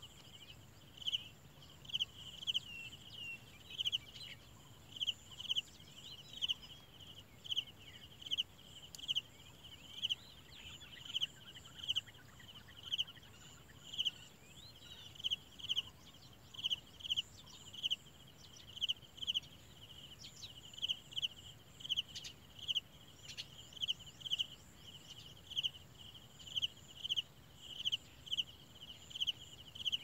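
A cricket chirping steadily, short chirps of one pitch about one and a half times a second, with a few faint bird calls in the background.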